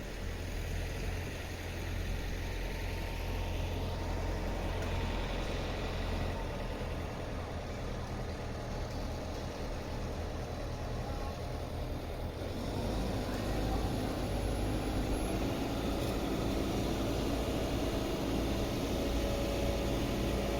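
Steady low rumble of vehicle engines running. About halfway through, a steadier hum with several pitched tones joins in and the sound gets a little louder.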